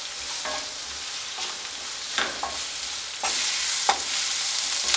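Sliced onions and green chillies sizzling in hot oil in a nonstick kadai, being sautéed until they wilt. The pan is stirred, giving several short scrapes and taps over the steady sizzle, which grows louder about three seconds in.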